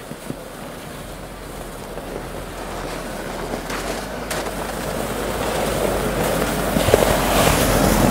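UAZ Patriot SUV driving up through snow, its engine and tyres growing steadily louder as it comes close and passes.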